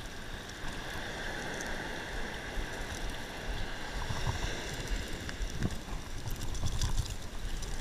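Steady wash of ocean surf on a beach, with low wind rumble and a few faint ticks from a hook and lure being handled.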